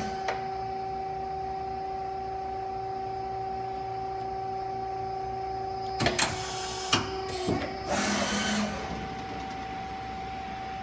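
Okuma ES-L10 CNC lathe running a program without cutting: a steady machine whine. About six seconds in come a few sharp clunks as the 12-position turret indexes, and a lower tone drops away. A brief rushing whir follows as the turret slide traverses.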